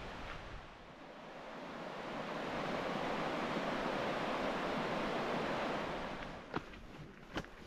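Rushing water of Avalanche Creek, a steady roar that swells up and then fades away again. A few footsteps near the end.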